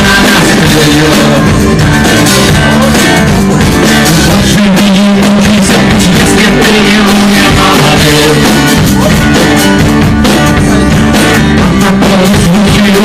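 Live rock band playing a song, with guitar and drums, recorded very loud at a steady level near full scale.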